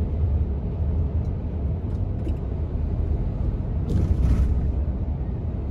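Heavy truck cruising at highway speed, heard from inside the cab: a steady low rumble of engine and road noise, with a brief hiss about four seconds in.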